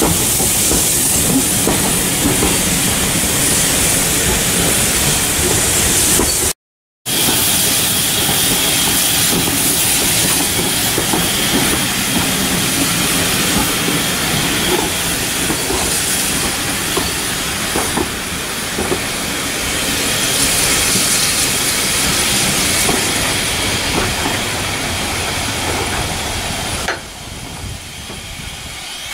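Steam-hauled train of passenger coaches running past: a steady rolling rumble of the wheels on the rails, with steam hiss. The sound cuts out briefly about six and a half seconds in and grows quieter near the end as the train draws away.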